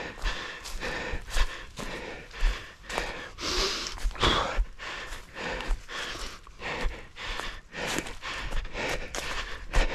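Orienteering runner's footsteps thudding at a steady running stride, about three steps a second, with hard breathing from the effort of racing.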